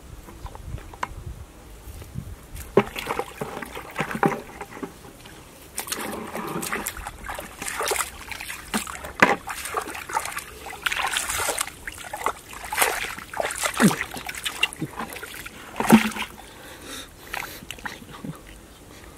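Irregular splashing and sloshing of shallow, muddy water as feet wade through it and hands dig and grope in the mud.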